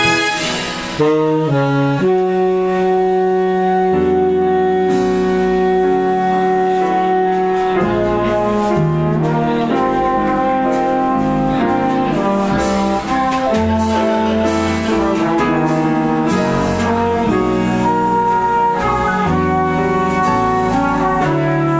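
Live big-band jazz: a saxophone section with trombones and trumpets playing together. A long held chord comes a couple of seconds in, then the ensemble plays moving lines.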